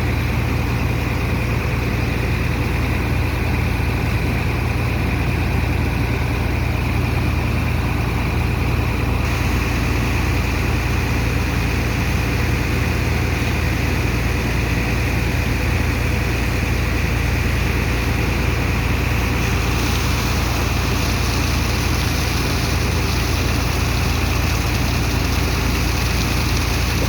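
Heavy machinery of a sand dredger, its engine and water pump, running steadily during sand unloading: a constant low drone with a rushing noise over it. The higher noise gets louder about nine seconds in and again about twenty seconds in.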